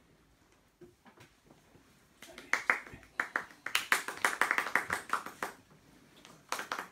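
A small group clapping hands irregularly, with some voices, starting about two seconds in after a short hush and picking up again near the end.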